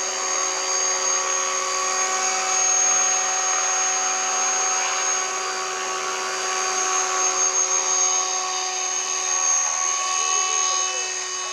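Align T-Rex 500 electric radio-controlled helicopter in low hover and slow flight: a steady high-pitched motor and gear whine over the swish of the rotor blades.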